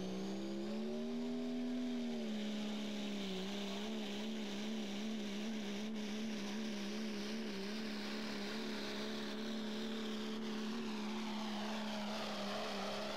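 Diesel Dodge Ram pickup pulling a sled, its engine running hard under full load in one steady drone. The note rises slightly about a second in, wavers quickly for a few seconds, then holds steady.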